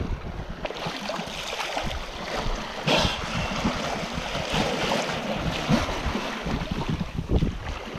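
Sea water rushing and splashing along the hull of a Contessa 26 sailing yacht under way, with wind buffeting the microphone, as dolphins break the surface close alongside. A short, sharp rush of sound about three seconds in.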